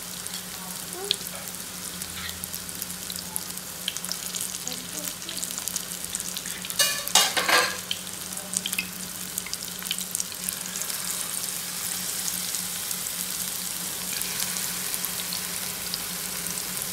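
Chicken vada batter deep-frying in hot oil in a pan: steady sizzling and bubbling dotted with small crackles. A brief, much louder burst of crackling comes about seven seconds in. The sizzle grows fuller in the second half as more spoonfuls of batter go into the oil.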